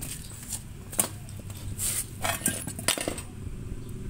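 A few sharp metallic clinks and taps of steel suspension parts and hand tools being handled, over a low steady background noise.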